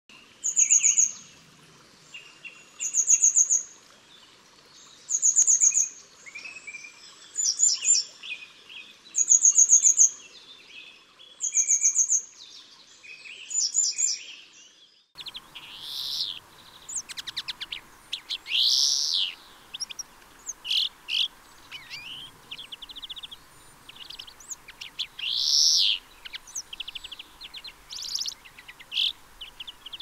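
A songbird repeats a short, high, trilling phrase about every two seconds. About halfway through, the recording switches to a European greenfinch singing: drawn-out buzzy notes about a second long among quick trills and twitters.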